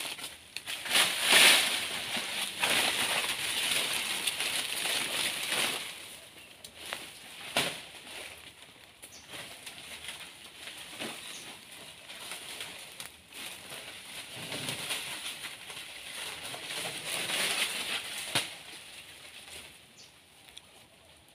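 Banana leaves, many of them dry, rustling in spells as they are pushed through and shaken, loudest in the first few seconds and again near the end, with a few sharp snaps.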